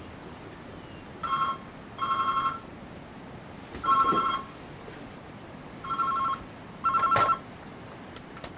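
Electronic ringing: five short bursts of a steady two-tone ring, the first two and the last two close together.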